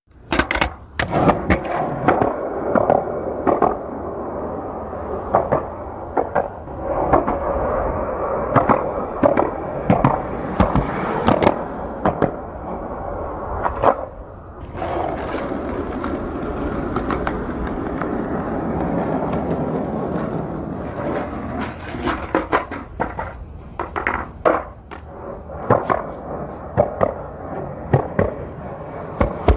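Skateboard wheels rolling steadily, broken by many sharp clacks and knocks of the board. The rolling drops out briefly about halfway through, then resumes before the clacks come thick again near the end.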